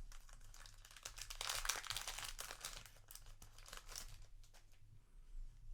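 Foil booster pack wrapper being torn open and crinkled. The crackling is densest for about the first four seconds, then gives way to a few quieter clicks and rustles.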